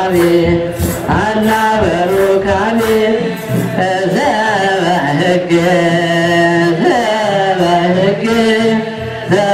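Ethiopian Orthodox wereb hymn: a mixed choir chants a slow melody in unison over a steady kebero drum beat of about two strokes a second.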